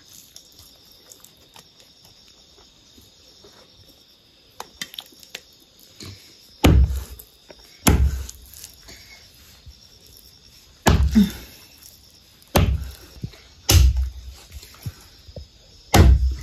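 Large kitchen knife chopping raw chicken on a wooden block: six heavy chops at uneven intervals, starting about six and a half seconds in, with a few lighter taps before them.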